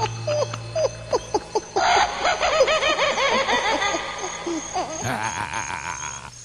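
High-pitched, rapid giggling laughter, used as a comic sound effect, with quick up-and-down pitch swoops that thin out near the end.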